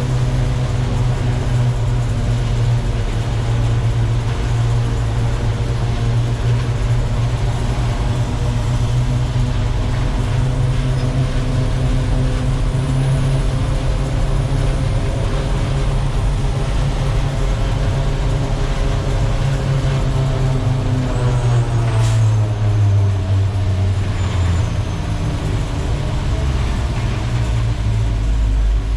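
Diesel engine of a Terex FD4000 front-discharge concrete mixer truck running steadily under way. About twenty seconds in, the engine note drops and wavers as the truck slows, and a sharp click comes shortly after.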